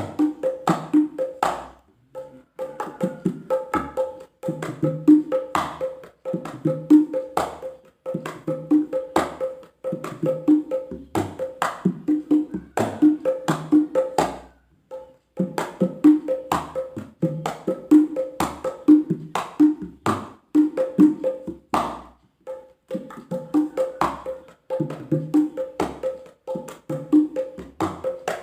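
Mini wooden kempul carved from solid jackfruit heartwood, struck in a quick rhythmic pattern, each hit giving a short, hollow pitched tone at a few set pitches. The playing breaks off briefly three or four times.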